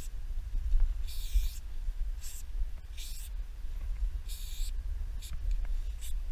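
Aerosol spray paint can hissing in short bursts as lines are sprayed onto a box truck's side: four main sprays of under a second each, then two brief spurts near the end, over a steady low rumble.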